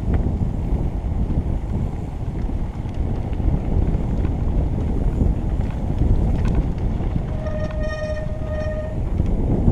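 Mountain bike descending a dirt forest trail: wind buffeting the helmet-camera microphone over the rumble and rattle of tyres on the rough track. Near the end a short, steady squeal sounds twice.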